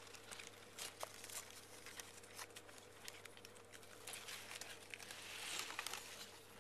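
Faint rustling and scattered light clicks over a steady low hum and hiss, with a louder stretch of rustling about five seconds in.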